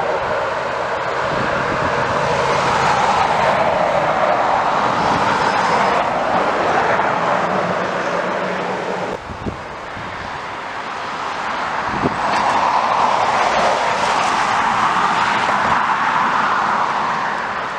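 Airliner engine noise: a loud, steady rush that swells and fades, breaks off suddenly about nine seconds in, then builds again.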